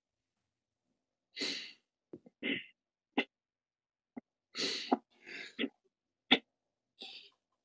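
A distressed person's sniffs, gasps and shaky breaths between words: about eight short, irregular bursts, two of them sharp.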